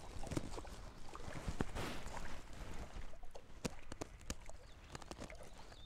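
Water splashing and lapping against the side of a fishing boat as a hooked smallmouth bass is landed by hand, with scattered light knocks and clicks.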